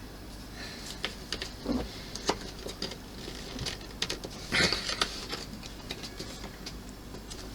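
Small, irregular clicks and taps of tweezers and a tiny pin against hard plastic model parts, as the pin is worked at but will not go through the wheel's hole. A few louder clicks about two seconds and four and a half seconds in.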